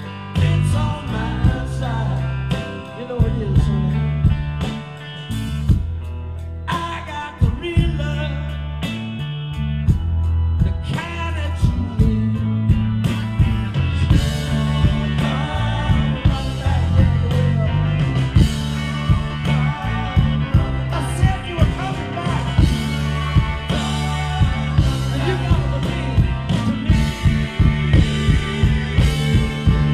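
Live rock band playing amplified: electric guitars, keyboard and drums, with a steady beat.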